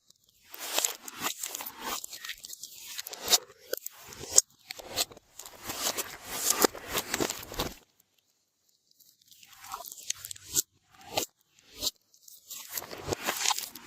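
Glossy slime being squished and mixed by hand, making irregular sticky crackles and sharp pops, with a short pause a little past the middle.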